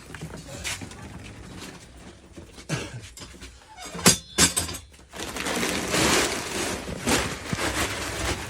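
A heavy thump about four seconds in, among lighter knocks, followed by a few seconds of rustling and handling noise.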